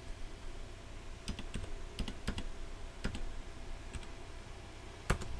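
Computer keyboard keys pressed a handful of times at irregular intervals, as short separate clicks, the loudest one near the end.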